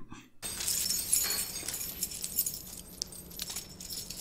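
Metal handcuffs and chains clinking as a person's wrists are cuffed, in scattered light clinks over a faint steady background noise.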